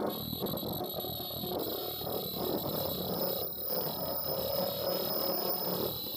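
Ultrasonic tie-on face-mask welding machine running in production: a steady fast mechanical clatter of feeders and conveyor belts, with a thin high-pitched whine held steady over it.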